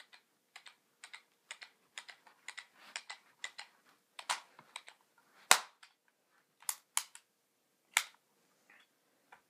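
Pump BB gun being pumped and handled: a string of irregular clicks and clacks, with the loudest sharp snaps about five and a half and eight seconds in.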